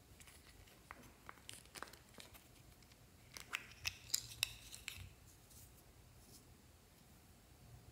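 Small plastic case being handled and opened, with light plastic clicks and taps, and a quick flurry of sharper clicks about three and a half to five seconds in as small rubber erasers knock against the plastic.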